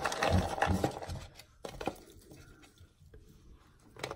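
Bark potting substrate and a clear plastic orchid pot being handled: a rustling clatter of bark chunks for about the first second, then faint scattered clicks.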